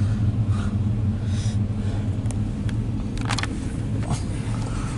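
Low, steady rumble of a passing freight train, CSX diesel locomotives giving way to empty coal hopper cars, heard from inside a car. A few sharp clicks come between about two and three and a half seconds in.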